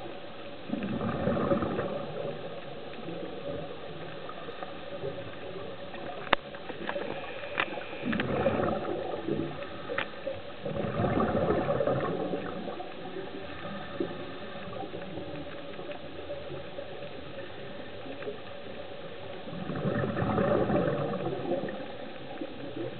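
Scuba diver's regulator exhaust bubbles gurgling underwater, swelling with each breath out about four times over a steady background hiss. A few sharp clicks come near the middle.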